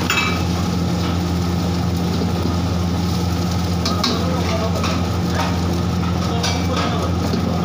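Egg fried rice frying in a black iron wok over a gas burner: a steady sizzle over a low hum, with a few metallic clinks of ladle and bowl against the wok, one at the start and another about four seconds in as cooked rice is tipped in.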